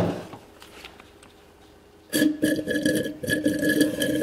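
A knock at the start. Then, about two seconds in, a hand suction pump slurps and gurgles brake fluid and air up its tube from the bottom of the nearly empty brake reservoir. The gurgling is choppy and runs for about two and a half seconds.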